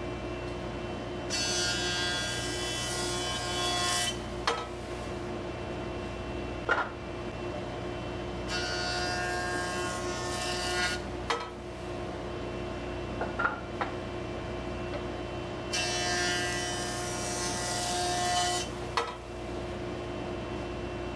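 Jointer running steadily while a board is fed over its cutterhead three times, each pass a loud, high-pitched cutting noise lasting about three seconds. Between passes come a few sharp knocks as the board is lifted back and set down.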